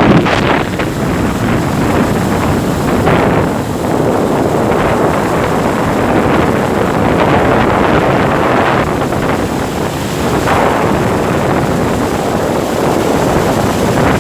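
Loud, steady wind buffeting the microphone while riding along the seafront, rising and falling slightly in gusts.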